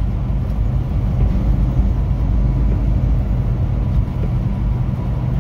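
Semi truck cruising at highway speed, heard from inside the cab: a steady low drone of the diesel engine and drivetrain, with tyre and road noise on wet pavement.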